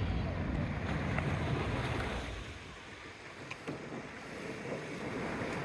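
Wind buffeting the microphone over sea water lapping and splashing around a kayak, the rumble heaviest for the first two seconds and then easing.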